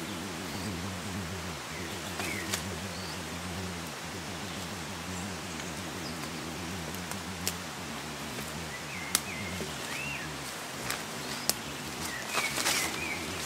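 Outdoor ambience: a low steady drone that fades out about ten seconds in, a few short bird chirps, and several sharp clicks and taps.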